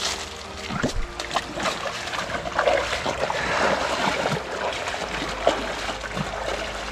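Footsteps wading and splashing through a shallow, rocky creek, with the stream's water running; the splashing is heaviest about midway.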